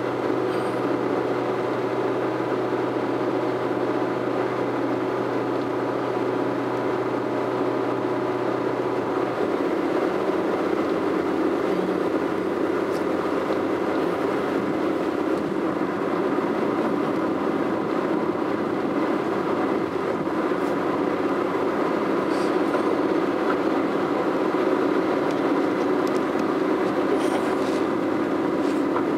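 Car driving at highway speed, heard from inside: a steady drone of tyres and engine, with a low hum that drops away about nine seconds in.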